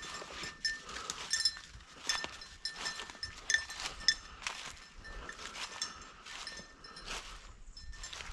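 A small bell on a running bird dog's collar jingling in irregular bursts, mixed with rustling, crunching steps through dry field cover.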